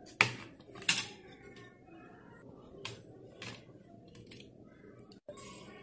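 A baking tray knocking and tapping against a plate as a baked cake is turned out of it. There are two sharp knocks in the first second, then lighter scattered clicks and taps as the cake is settled on the plate.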